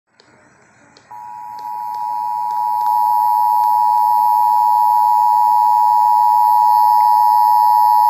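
Emergency Alert System two-tone attention signal from a radio's speaker, announcing a Child Abduction Emergency (Amber Alert). It starts about a second in and grows louder in steps over the next two seconds as the volume is turned up, with a few faint clicks. It then holds steady.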